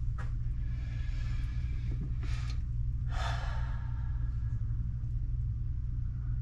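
A person breathing out heavily twice, a couple of seconds in, over a steady low rumble.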